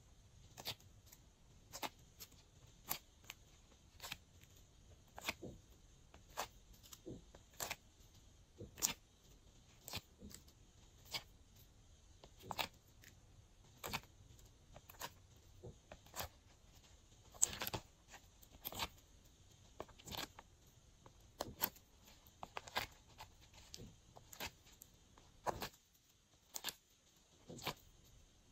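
Glossy slime being squished and kneaded by hand, making irregular sharp clicks and pops, about one or two a second.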